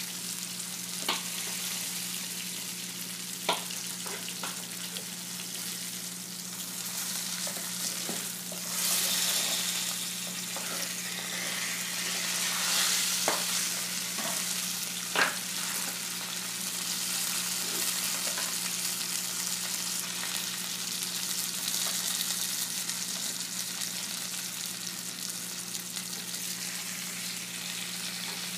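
Food frying in a pan: a steady, high sizzling hiss that swells a couple of times, with a few sharp clinks of utensils against the pans, the loudest about fifteen seconds in, over a low steady hum.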